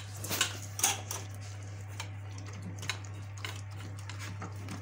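Two dogs eating wet food from stainless steel bowls in a wire stand: quick, irregular clicks and clinks of tongues and teeth against the metal bowls as they lick and chew. A steady low hum lies underneath.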